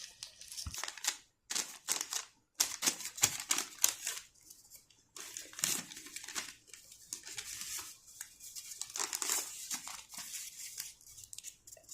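Plastic blind-bag wrapper crinkling and rustling in irregular bursts as it is handled and opened. A few abrupt cuts to silence break it up.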